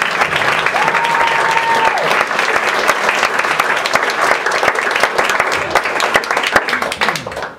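Audience applauding, with a single held whistle about a second in; the clapping stops abruptly near the end.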